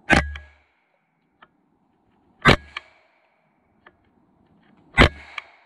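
Three sharp bangs about two and a half seconds apart, each with a brief ring and a smaller click just after it.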